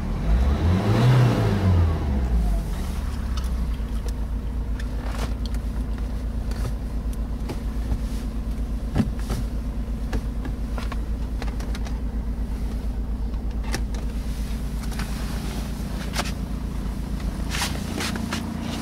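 Opel Astra 1.7 CDTI four-cylinder turbodiesel engine revved once while standing, its pitch rising and falling back within the first couple of seconds, then idling steadily. Several small clicks and knocks sound over the idle, the sharpest about nine seconds in.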